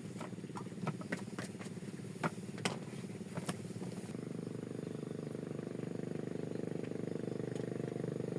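A small engine running steadily, a little louder from about halfway through, with a few sharp clicks and taps over it in the first half.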